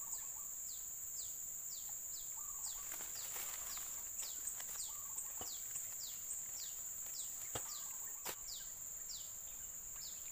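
Steady high-pitched insect drone with a bird repeating short falling call notes, two to three a second, and a few faint clicks.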